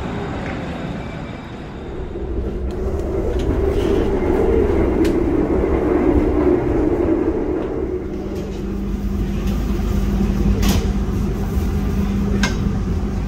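A train running past on the station tracks: a steady rumble that grows louder about two seconds in, with a low hum under it and a few sharp clacks.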